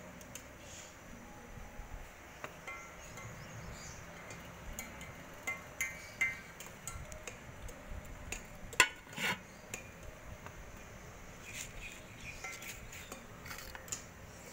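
Light metal clinks of cookware, then two loud clanks about nine seconds in as an aluminium lid is set on the pot of curry, covering it for slow dum cooking.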